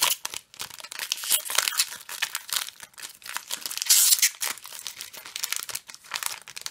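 Foil wrapper of a Pokémon trading card booster pack being torn open and crinkled by hand, in quick irregular crackles, loudest about four seconds in.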